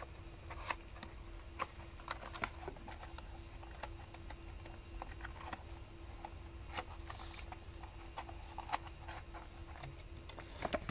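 Scattered light clicks and taps of hands handling packaged boxes in a cardboard shipping carton, a white cardboard box among them, over a faint steady hum.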